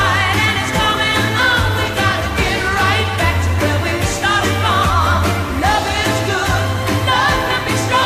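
Pop song with a lead singer over a steady bass line, played as a hockey team's goal song.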